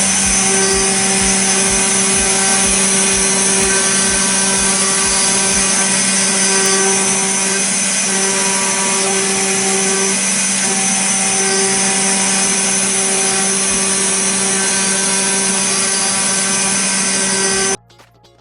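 DIY CNC machine's spindle milling a brass plate: a steady, loud whine with cutting noise. A low knock comes about twice a second for the first few seconds, and the sound stops abruptly near the end.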